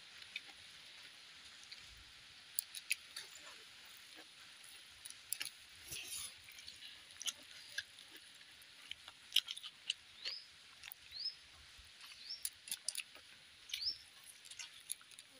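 Quiet eating by hand: scattered soft clicks and lip smacks from chewing, over a faint steady hiss. A few short, high, rising chirps sound in the second half.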